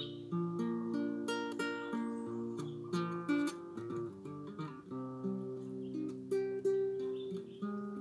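Nylon-string classical guitar played solo in an improvised run: single plucked notes over held bass notes, with a few strummed chords.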